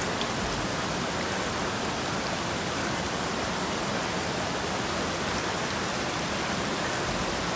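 Shallow mountain stream rushing over rocks: a steady, even rush of water.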